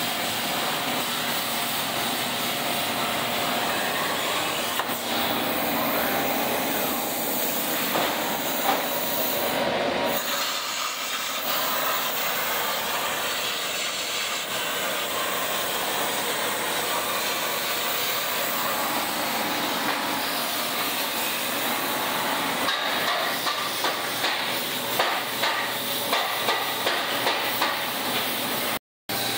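Plasma torch on a Lockformer Vulcan Plus cutting table cutting sheet metal: a steady, loud hiss that dips briefly about ten seconds in, with a run of sharp clicks over the last few seconds.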